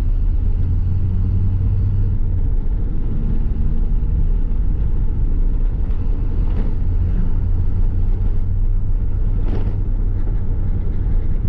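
VW Gol's CHT four-cylinder engine with an aftermarket 'turbinho' exhaust running at a steady pace while driving: a constant low drone with no revving up or down. Two faint brief clicks sound about two thirds of the way in and again near the end.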